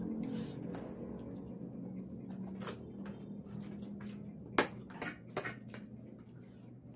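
Eating glass noodles at close range: forks clicking against ceramic plates and bowls as noodles are lifted, slurped and chewed, with a sharp clink about four and a half seconds in. A low steady hum runs underneath.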